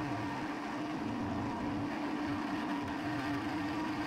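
Aciera F1 milling machine running at about 2000 RPM with a steady hum and a constant tone, while the cutter is fed full depth through a thick brass ratchet wheel blank.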